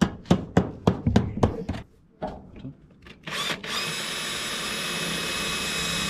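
About seven quick scraping strokes of a hand tool on the edge of a zinc flashing sheet, roughly four a second. About three seconds in a cordless drill starts on the flashing and runs with a steady whine.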